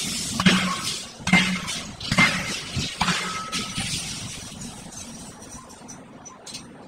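Steel striking steel at a forging anvil: sharp clinks and knocks about once a second for the first three seconds, then thinning to faint scattered ticks.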